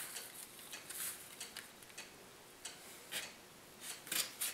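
Faint scratchy clicks and scrapes of a snap-off utility knife being handled and set into a foam grass mat, a few separate strokes with a small cluster near the end.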